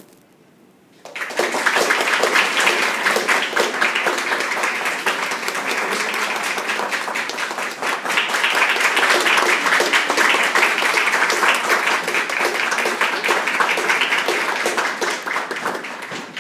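Audience applauding: the clapping breaks out about a second in and carries on as a dense, steady patter, easing off slightly near the end.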